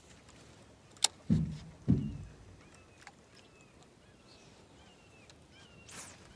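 A sharp click about a second in, followed by two dull low thumps, the loudest sounds, as something knocks in a jon boat; small birds chirp faintly afterward.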